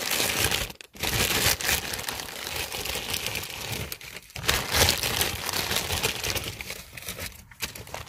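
Clear plastic packaging crinkling and rustling as it is handled and pulled open, with short pauses about a second in, near the middle and near the end.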